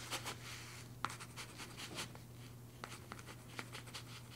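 Pen scratching on paper in short strokes with scattered sharp clicks, over a steady low hum.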